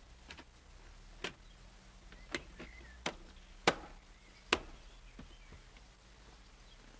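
Plastic dashboard display housing of a Citroën Berlingo/Peugeot Partner being pressed into place by hand, giving a series of sharp plastic clicks, five loud ones between about one and five seconds in, as it snaps onto the dashboard.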